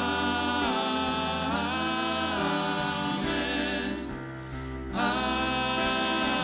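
Vocal ensemble singing a worship song in long held notes, with accompaniment; the sound dips a little past the middle and swells again about a second later.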